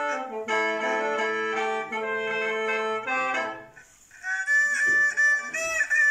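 Lao khaen, a bamboo free-reed mouth organ, playing a melody in several steady tones over a held low drone. It stops about three and a half seconds in. After a short pause, a single wavering, sliding melody line starts.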